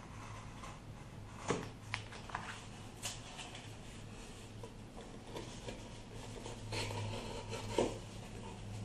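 Hand-tool work on a board: a few sharp clicks and taps between about one and a half and three seconds in, then a scraping rub near the end, over a steady low hum.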